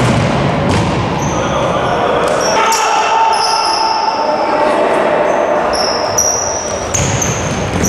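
Futsal being played on an indoor wooden court: the ball thumps off feet and floor, shoes give short high squeaks, and players call out, all echoing in the hall.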